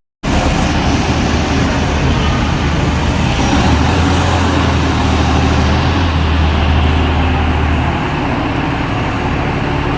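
A motor vehicle's engine running steadily, with a strong low hum under outdoor background noise; the low hum eases about eight seconds in.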